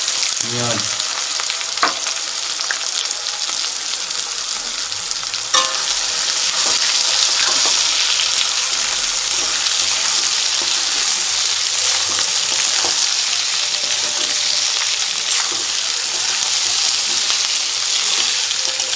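Sliced onions sizzling steadily in hot oil in a metal kadai, being fried until reddish-brown, while a wooden spatula stirs them and knocks against the pan a couple of times in the first six seconds.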